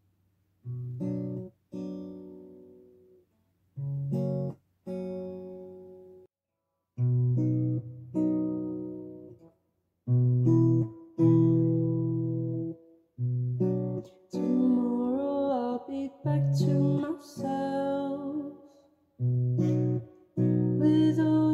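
Acoustic guitar with a capo playing chords in short phrases, each ringing and fading before a brief pause. About two-thirds of the way in, a young man's singing voice joins over the guitar.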